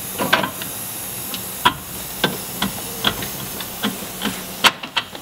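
Irregular clicks and light knocks, roughly one a second, as a gloved hand works metal suspension parts into place, over a steady hiss.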